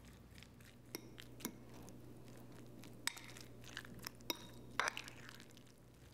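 Metal fork mashing and stirring diced avocado in a glass bowl: soft squishing, with irregular sharp clinks of the fork against the glass, the loudest about three and about five seconds in.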